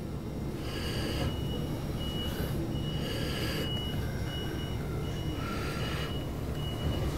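Train running, heard from inside the carriage: a steady low rumble of wheels on track, with a thin high tone beeping on and off and brief hissing swells about a second, three seconds and six seconds in.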